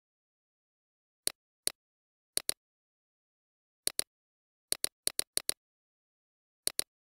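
Computer mouse clicks, sharp and short with silence between, about fourteen of them, most in quick pairs like double-clicks, with a run of four fast clicks about five seconds in.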